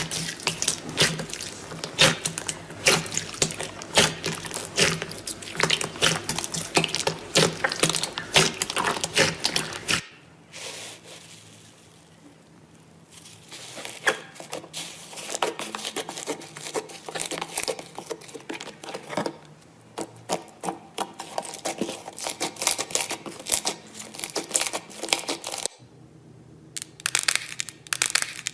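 Slime being squeezed and pressed by hand, a dense run of crackles and small pops from air pockets. The sound cuts to a quieter, sparser slime about ten seconds in, and cuts again near the end.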